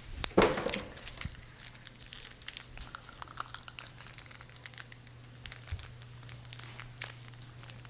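Crinkling and rustling of thin packaging, a run of sharp irregular crackles with a louder burst about half a second in, over a steady low hum.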